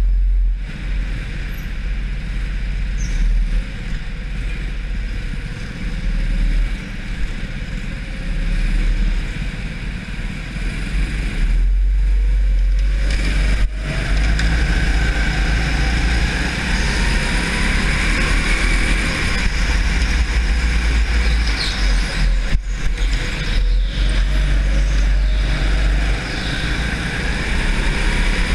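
Onboard sound of an indoor racing go-kart at speed: the kart's engine running and revving under a heavy low rumble. It drops away briefly a couple of times.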